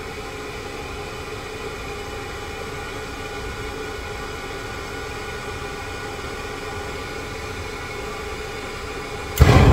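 A kerosene boiler's pressure-jet oil burner running on a restart attempt, its fan motor and fuel pump giving a steady hum with several held tones. It has not yet lit: the boiler has been failing to fire. Near the end comes a loud low rumble lasting about a second.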